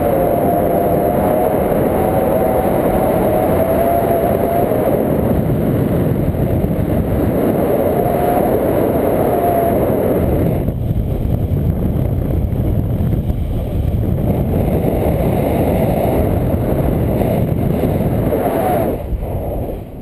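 Wind rushing over a camera microphone in paraglider flight: a loud, steady rumbling noise that drops away near the end.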